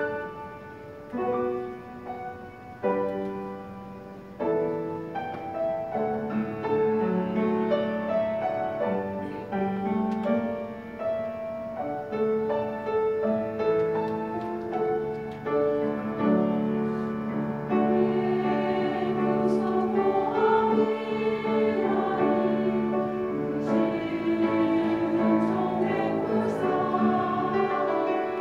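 Mixed church choir of men and women singing in parts. It opens with a few separate held chords in the first seconds, then sings on continuously in sustained phrases.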